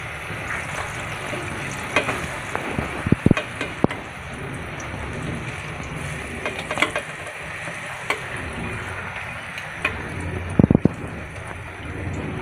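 Spring-roll-wrapped banana sticks deep-frying in hot oil with a steady sizzle. Metal tongs clink several times against a perforated metal skimmer and the pot as the golden-brown sticks are lifted out, the loudest clinks near the end.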